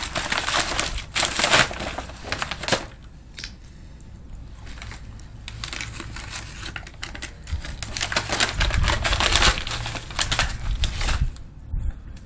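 MRE plastic packaging crinkling and crackling as it is handled and opened. It is loudest in the first three seconds and again from about seven to eleven seconds in, quieter in between.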